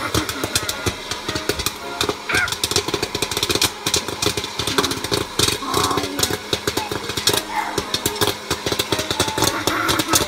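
Air Crazy hot-air popcorn maker running: its fan and motor give a steady hum under dense, rapid popping of kernels as the popped corn blows out of the chute.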